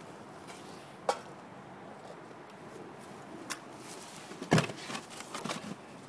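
Beehive parts being handled: a sharp knock about a second in, another past the middle, then a heavier thump and a run of small clattering knocks near the end as a hive board is lifted and set against the cinder blocks.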